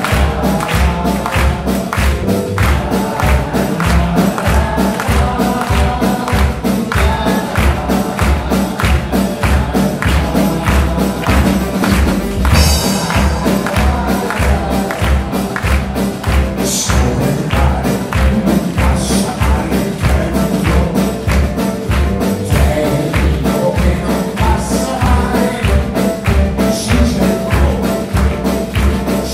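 Live small band of accordion, double bass, saxophone, piano and drum kit playing a song with a quick, steady beat.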